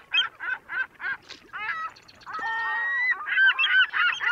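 Birds calling: a run of short calls about three a second, a longer held call near the middle, then several birds calling over each other toward the end.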